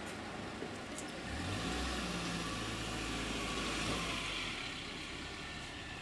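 A motor vehicle passing along the street, its engine hum and tyre noise swelling for a few seconds and then fading away.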